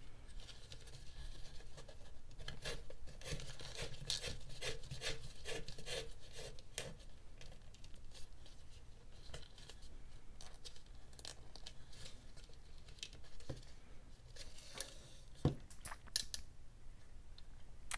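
Leather lace rubbing and scraping as it is pulled through a hole in a dried gourd's rim and drawn tight through the braid. The scrapes come in quick, irregular strokes, thinning out later, with a few sharper taps as the hands handle the hard gourd shell.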